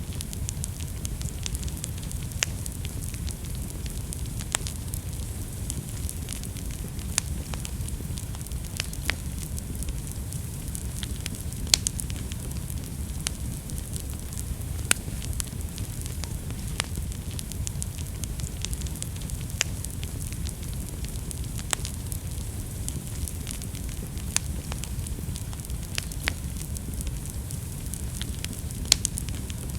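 Wood fire burning in a fireplace: a steady low rumble of the flames with a hiss, broken by scattered sharp crackles and pops, the loudest about twelve seconds in and near the end.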